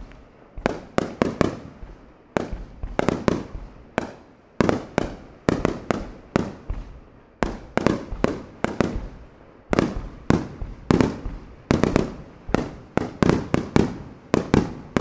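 Aerial firework shells bursting in quick, uneven succession, two or three sharp bangs a second, each trailing off in a short echo.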